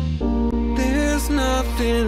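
Background music: a song with held bass notes and a melody line that glides up and down in pitch.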